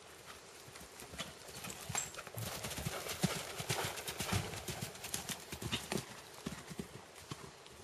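Hoofbeats of a horse cantering on a sand arena, louder for a few seconds in the middle as it comes close.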